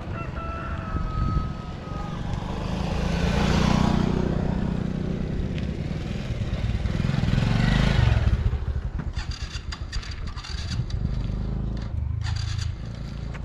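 Motorcycle engine running on the road, its noise swelling louder twice, about four and eight seconds in.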